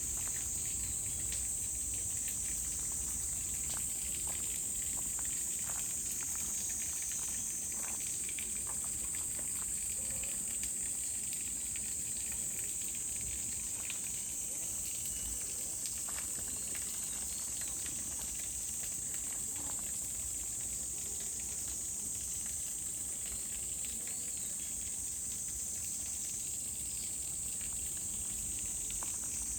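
Summer insect chorus in a wooded valley: a steady, unbroken high-pitched drone, with light footsteps ticking faintly underneath.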